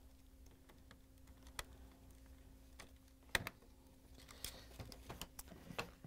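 Light plastic clicks and handling noise as a red-wire harness connector is fitted onto a Bosch dishwasher control module, with one sharper click about three and a half seconds in and a run of small ticks near the end.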